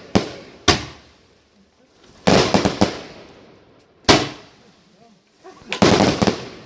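Fireworks going off in a series of loud bangs, each fading away in an echoing tail: two bangs at the start, a rapid cluster a couple of seconds in, a single sharp bang about four seconds in, and another quick cluster near the end.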